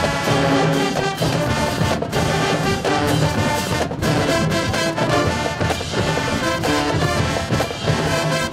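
Marching band playing: a full brass section over drums, loud and dense, with repeated drum hits.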